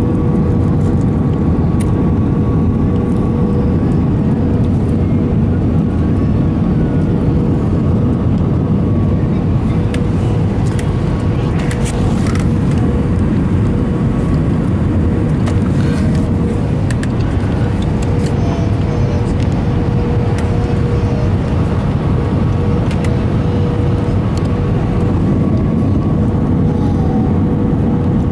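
Steady cabin noise inside an Airbus A320 in flight: the low, even rush of the engines and airflow, with a steady whine in it.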